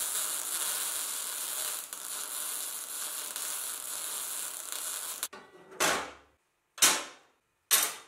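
Electric arc welding on steel, the arc crackling steadily for about five seconds, then three short sharp sounds about a second apart that each fade quickly.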